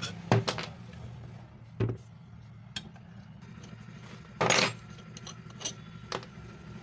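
Scattered clinks and knocks of hand tools working on a mixer grinder's jammed drive bush, with one longer, louder rasp a little past halfway.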